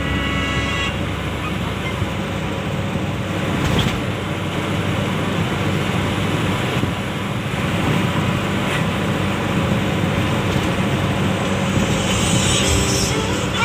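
Mitsubishi L300's engine and exhaust, fitted with a Canter flexible pipe, running steadily with a mellow exhaust note.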